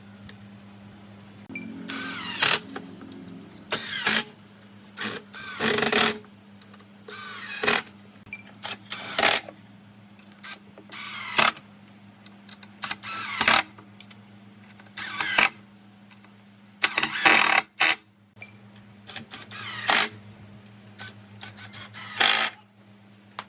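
Short rubbing or scraping strokes, about a dozen, irregularly spaced, over a steady low hum.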